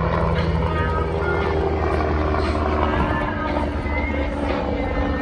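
Helicopter flying overhead: steady rotor and engine noise with a low hum.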